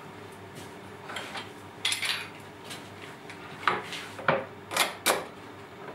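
Steel pipe clamps clanking as they are set across a glued-up wooden panel and their jaws slid along the pipes: a scraping clatter about two seconds in, then four sharp metallic knocks close together near the end.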